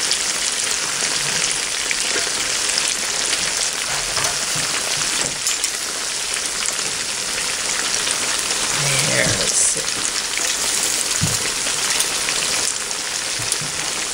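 Breaded cube steaks frying in hot oil in a cast iron skillet: a steady sizzle with fine crackles, and a few light knocks of the fork and spatula in the pan as the steaks are turned.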